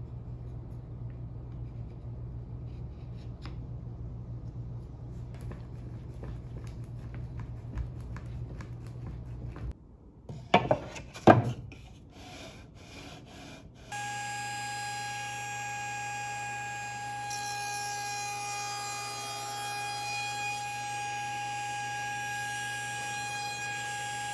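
Soft rubbing and light clicks of a strap clamp being fitted and drawn tight around a mitered mahogany frame, over a steady low hum. A few loud wooden knocks about halfway through, then a steady machine drone with a high, even whine for the rest.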